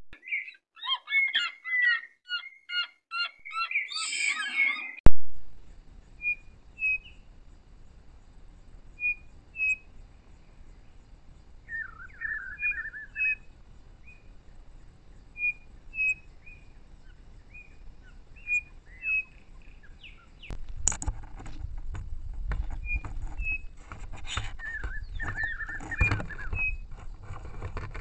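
Birds chirping: a quick run of chirps at first, then sparse short chirps and a brief trill over a quiet background. About twenty seconds in, a low rumble with clicks and knocks starts, as an ocelot rubs against the trail camera.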